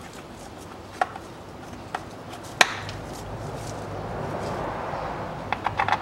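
Sharp clicks and knocks of hand-tool work on the engine's lower timing cover area, a few single strikes and then a quick cluster near the end. A low hum with a rushing noise swells up in the middle.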